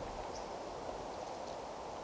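Steady outdoor ambient hiss, with a couple of faint, short high chirps.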